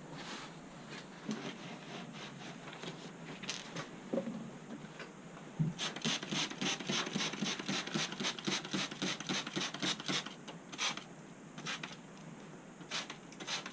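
Rapid back-and-forth rubbing strokes, about five a second, in a run from about six to ten seconds in, with scattered scrapes before and after.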